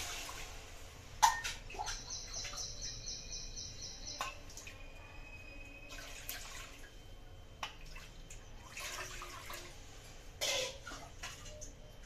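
Water poured from a small bowl into a metal pot, splashing onto the water already in it, in several separate pours. There is a sharp knock about a second in.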